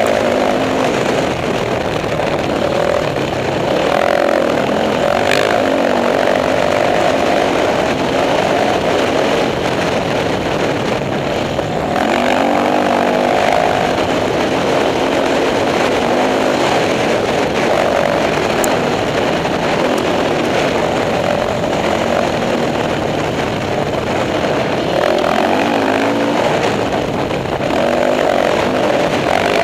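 Dirt bike engine running under way on a trail, its revs rising and falling every few seconds as the throttle opens and closes.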